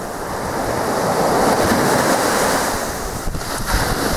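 Small sea waves breaking and washing up a sand beach, a steady rushing surf that swells about a second in.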